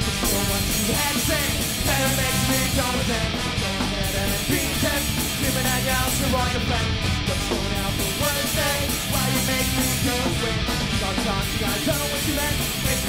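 Live rock band playing loud and steady, with electric guitars, bass, drums and a horn section, heard from the crowd in a club.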